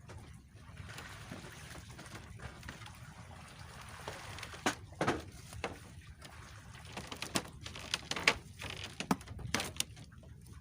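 Sea water sloshing, over a steady low rumble, with scattered sharp knocks and clicks.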